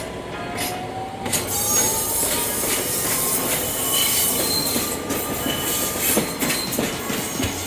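DE11 diesel-hydraulic shunting locomotive rolling through yard trackwork, its note rising in pitch over the first two seconds. From about a second and a half in, its wheels squeal on the curves and points, with sharp clicks from the rails.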